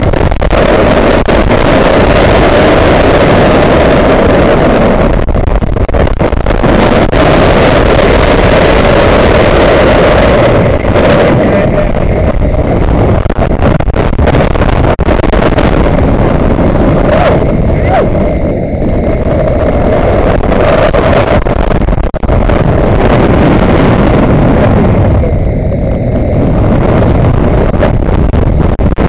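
Loud, steady wind noise buffeting the camera's microphone as it is whirled around on a fast-spinning fairground ride, thinning briefly twice in the second half.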